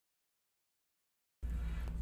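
Dead silence, then about a second and a half in a steady low hum of room tone cuts in abruptly.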